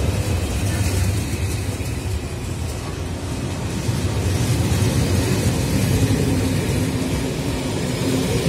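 Passenger train coaches rolling past at low speed as the train pulls out of the station: a steady rumble of steel wheels on the rails.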